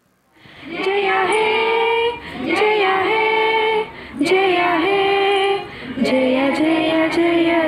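A female voice singing a slow melody in long held phrases, fading in about half a second in.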